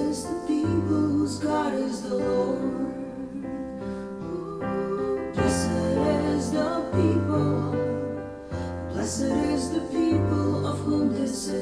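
A woman singing a slow worship song over keyboard accompaniment, with sustained low piano chords that change about once a second under the voice.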